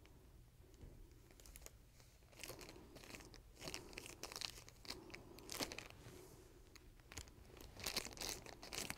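Faint crinkling and rustling of a thin clear plastic barrier sleeve being worked over a diode dental laser handpiece, in irregular bursts that pick up about two and a half seconds in.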